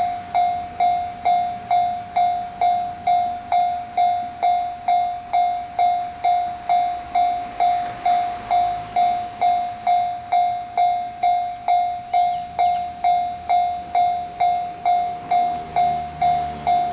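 Japanese railway level-crossing warning bell ringing steadily, a single clanging tone struck about twice a second with each stroke dying away, signalling that a train is approaching. A low rumble grows under it near the end.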